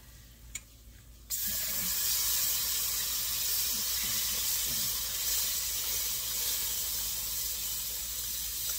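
Milk poured into a hot butter-and-flour roux in a frying pan, setting off a sudden loud sizzle about a second in that keeps hissing steadily.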